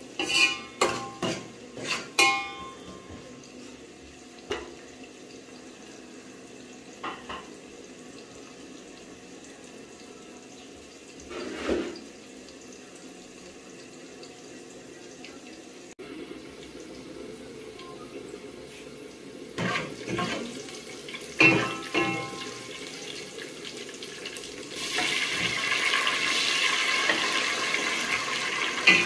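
Sliced onions frying in oil in an aluminium pot, a steady low sizzle, with a spoon knocking against the pot several times near the start and again about twenty seconds in. Near the end, sliced tomatoes go into the hot oil and the sizzle becomes much louder and steady.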